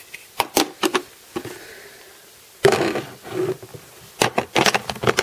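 Handling noise from a plastic Lego model being picked up and moved about by hand: a run of sharp clicks and knocks, with a louder, fuller knock about two and a half seconds in and a quick cluster of clicks near the end.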